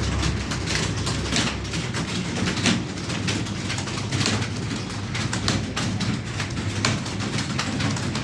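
Computer keyboards clattering as several people type at once: a fast, irregular run of key clicks over a steady low hum.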